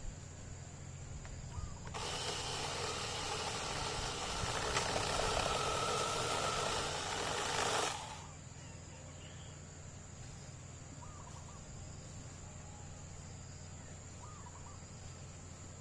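Small 8-inch cordless electric chainsaw running for about six seconds, starting about two seconds in and cutting off suddenly, with a steady low hum underneath and a few short bird calls in the quieter stretches.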